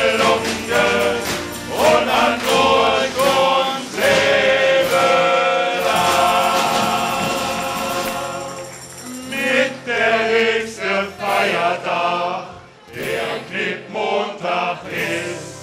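A men's group singing a carnival song together, with acoustic guitar, bass drum and snare. A long held chord fades out about eight seconds in, then the singing goes on in shorter phrases.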